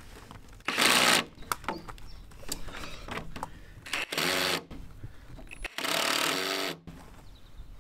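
Cordless drill driving screws into the wooden slats of a cast-iron bench, in three short bursts of motor whine with pauses between.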